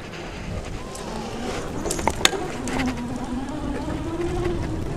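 Electric bike motor whining with a buzzing hum while riding, over wind rumble on the microphone, with a sharp click a little past two seconds in.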